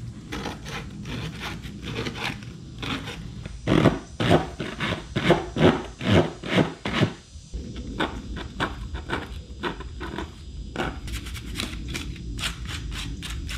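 Hand-sanding the cut edges of a plastic car interior panel: quick back-and-forth rasping strokes, a few a second, with a couple of short pauses.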